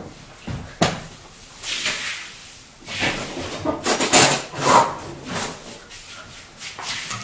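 Rummaging and handling things at a kitchen counter: scattered knocks and rubbing, busiest in the middle, then footsteps near the end.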